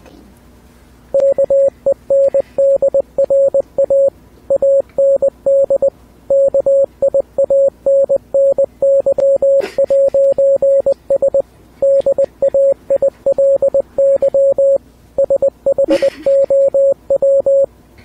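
Morse code beeps: a single mid-pitched tone keyed on and off in short dots and longer dashes, spelling out "Kendra and Kianny's Daily Show". It starts about a second in and runs in groups with short gaps between letters and words.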